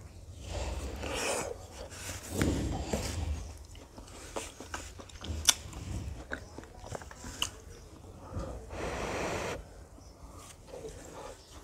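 A person biting and chewing frozen kulfi close to the microphone: irregular bites, crunches and wet chewing.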